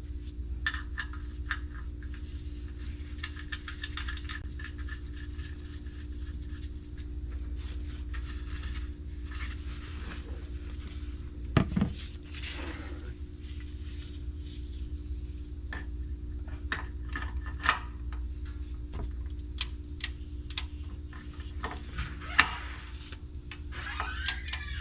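Metal hand tools clicking and clinking as a socket wrench tightens the differential fill plug, with a few sharper single clicks, over a steady low hum.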